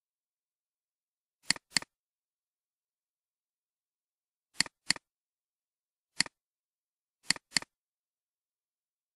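Computer mouse clicking: a double click about a second and a half in, another near five seconds in, a single click, then a last double click, with silence between.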